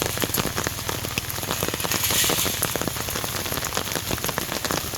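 Heavy rain falling steadily, a dense patter of close raindrops striking a surface.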